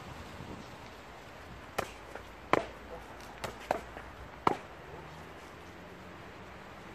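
Boxing gloves smacking focus mitts: a quick series of about seven sharp punches between about two and five seconds in, a couple of them much louder than the rest.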